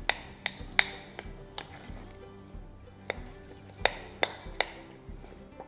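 Glass bowls, jars and kitchen utensils clinking as they are handled and set down on a stone countertop: about eight sharp, irregular clinks, over faint background music.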